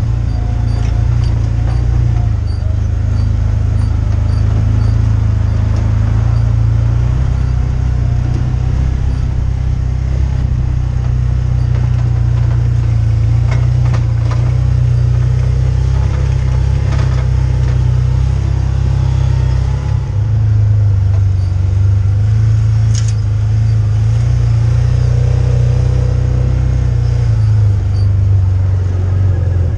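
Side-by-side utility vehicle's engine running while riding: a steady low drone that dips briefly about two-thirds of the way through and then settles a little lower in pitch, with a few light knocks.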